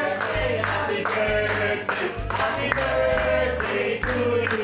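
Background music: a sung song over a steady bass line and beat.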